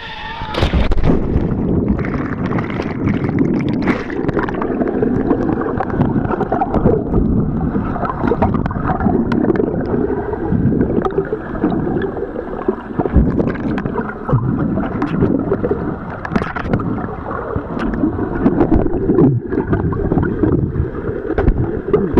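Water hits with a sudden rise about a second in. It gives way to a muffled, continuous rushing and gurgling of water around a camera held underwater, mostly low and dull in pitch.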